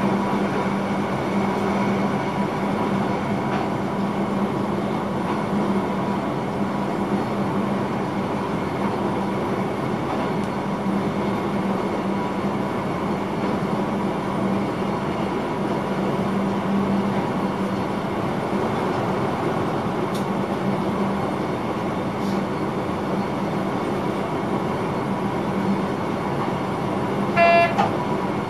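Steady running noise of an electric intercity train at speed, heard inside the driver's cab, with a constant low hum. Near the end a short toot sounds, about half a second long.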